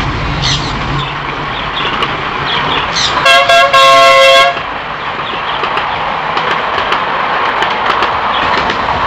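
Horn of a miniature ride-on train tooting about three seconds in: a couple of short toots running into a held blast of about a second, over steady background noise.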